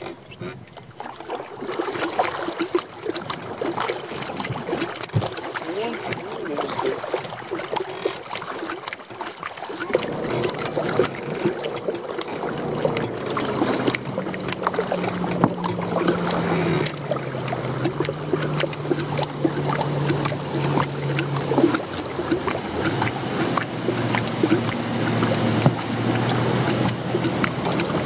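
Double-bladed paddle dipping and splashing as a sit-on-top kayak is paddled across open water. About ten seconds in, a low hum joins and steps down in pitch several times.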